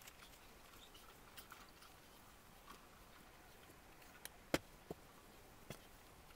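Faint, scattered clicks and knocks of a long-handled tool working through loose straw, the loudest a single sharp knock about four and a half seconds in, with a few more just around it.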